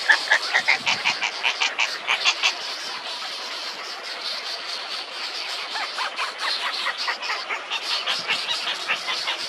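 Nestling birds chirping in quick repeated calls, several a second. The calls are loudest in the first couple of seconds, then softer chirping continues.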